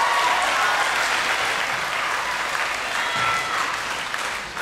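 Audience applauding, the clapping gradually dying down near the end.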